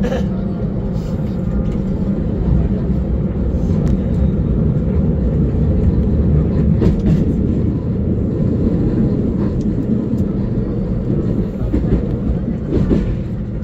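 Seoul Subway Line 1 electric commuter train running, heard from inside the car: a steady low rumble of wheels on rails with a few faint clicks.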